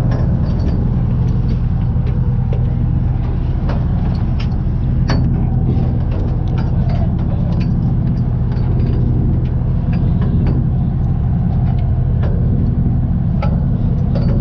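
A steady low motor-like drone that holds one even pitch throughout, with scattered light clicks and taps over it.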